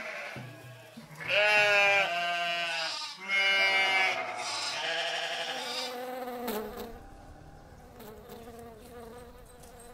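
A flock of sheep and goats bleating: two loud, quavering bleats in the first half, then fainter calls that die down.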